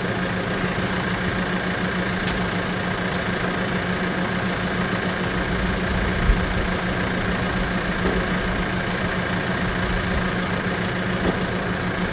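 JCB telehandler's diesel engine idling steadily, with a single short knock about six seconds in.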